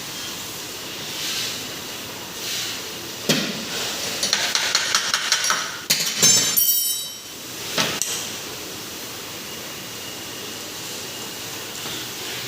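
Metal hand tools and parts clinking and knocking during motorcycle dismantling: a sharp knock about three seconds in, a run of light clinks, then a louder clank with a brief metallic ring around six seconds in and a single knock near eight seconds.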